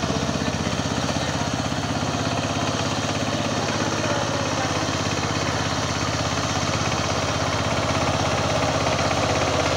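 Power tiller engine running steadily with a rapid, even beat.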